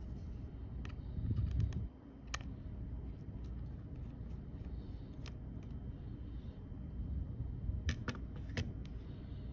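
Scattered small sharp clicks and taps of a precision Phillips screwdriver and tiny screws being worked out of an iPhone's internals, with a brief low handling rumble about a second in and a quick run of clicks near the end.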